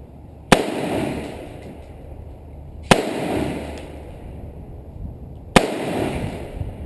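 Gunshots in slow, deliberate fire: three sharp shots about two and a half seconds apart, each followed by a rolling echo that dies away.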